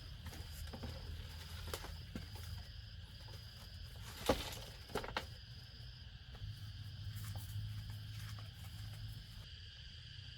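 Steady insect chorus, a high even buzz, with scattered clicks and knocks over it, the loudest about four and five seconds in.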